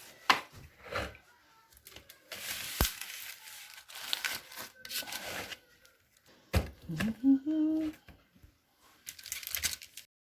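Dry corn husks tearing and crackling as ears of corn are handled, in short rustling bursts with a few knocks, and a brief hum of voice about two-thirds of the way through.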